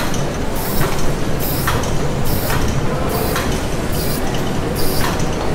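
Industrial machinery running: a steady rumble with a regular hissing stroke repeating a little more than once a second.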